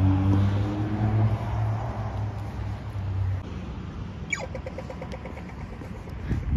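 A car engine passing close by, a steady low drone that fades away over about three seconds. About four seconds in, an Australian pedestrian crossing signal gives its falling electronic 'zap' and then fast, even ticking, the walk signal.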